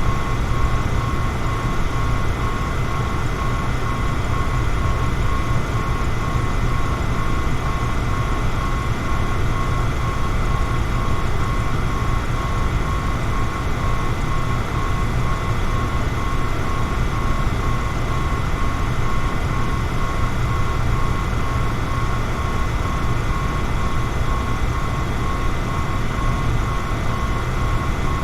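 Electric fan running steadily: an even, low whooshing hum with a thin, steady whine above it.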